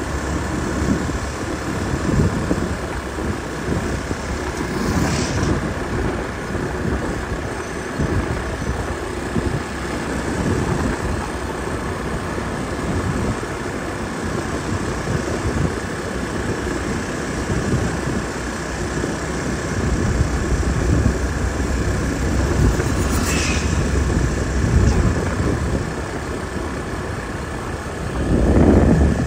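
City street traffic: a steady rumble of passing engines, swelling louder as a vehicle goes by close near the end.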